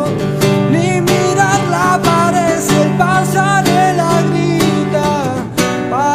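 Music: a song passage led by acoustic guitar strumming, with a gliding melody line over it.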